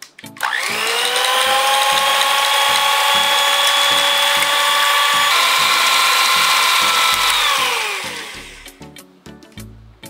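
Electric hand mixer whipping cream: the motor whines up to speed about half a second in and runs steadily, steps up slightly in pitch about five seconds in, then winds down and stops near the end. The beaters are whipping the cream toward soft peaks.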